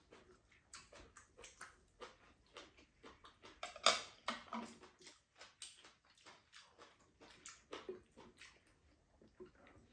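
Eating at a table: chewing and mouth noises mixed with light, irregular clicks of chopsticks and a spoon against bowls, the sharpest click about four seconds in.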